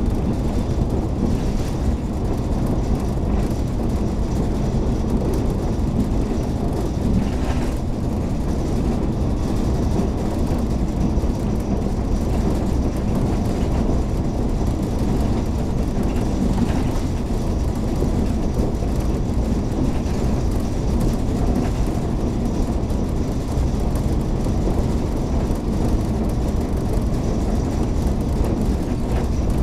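Passenger train running at speed, heard from inside the carriage: a steady low rumble of wheels on rails and the car's running noise.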